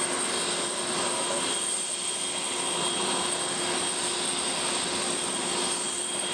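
Steady jet turbine noise from an Antonov An-225 cargo jet on the ground: an even rushing sound with several constant whining tones held throughout.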